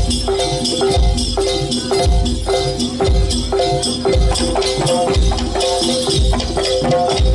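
Campursari-style Javanese music for a jaranan performance: a heavy low drum beat about once a second under a repeating held melody, with busy high percussion over the top.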